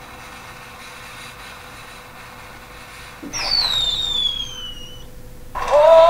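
A cartoon falling-whistle sound effect: a clear whistle that slides steadily down in pitch for about two seconds, starting about three seconds in after a faint steady hiss. Loud music with synthetic-sounding singing cuts in near the end.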